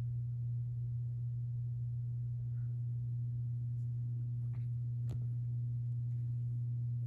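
Emerson Casablanca Classic ceiling fan motor running with a steady low electrical hum, with one faint click about five seconds in.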